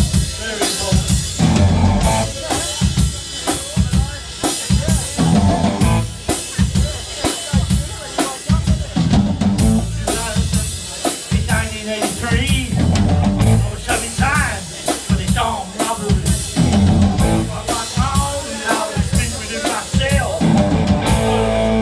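A live rock band plays an instrumental passage: a steady drum-kit beat of bass drum and snare, with electric guitars over it.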